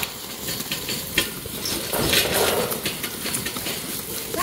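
A herd of goats walking out of a pen, with scattered hoof taps and rustling over dry ground and grass.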